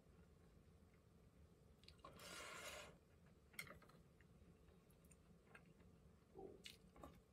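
Faint eating sounds: chopsticks clicking lightly against a ceramic bowl of broth, with one soft rushing noise lasting just under a second, about two seconds in.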